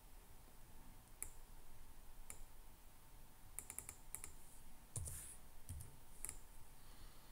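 Faint computer keyboard typing and mouse clicks: a few scattered clicks, with a quick run of keystrokes about three and a half seconds in. A soft thump about five seconds in.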